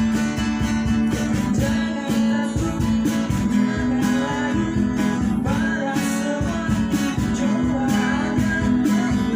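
Acoustic band music: strummed acoustic rhythm guitar with a lead guitar line over it and a cajon keeping the beat.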